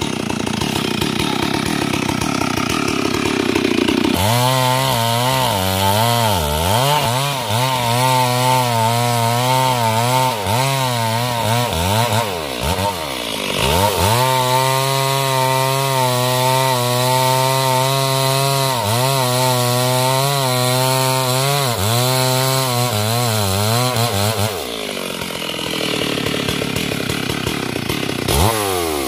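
Stihl MS 382 two-stroke chainsaw cutting wood at high revs, its engine pitch dipping and recovering again and again as the chain loads up in the cut. Near the end the engine drops off before revving up again.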